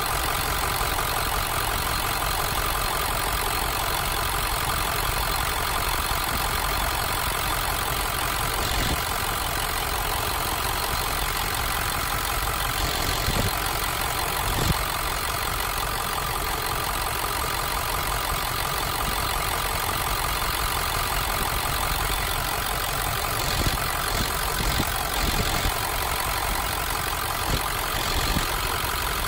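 Ford 7.3 Power Stroke V8 turbo-diesel idling steadily with its oil fill cap off. A few brief light knocks come through over the engine.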